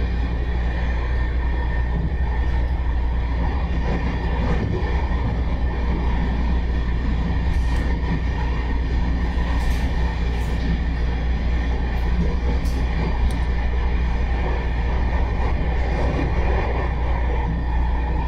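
Cabin sound of a MARTA heavy-rail train car running at speed: a steady low rumble of wheels on rail with a constant hum of tones over it, and a few faint ticks around the middle.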